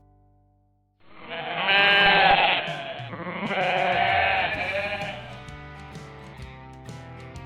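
Sheep bleating: two long, wavering bleats, the first about a second and a half in and the second around three and a half seconds, over quiet background music.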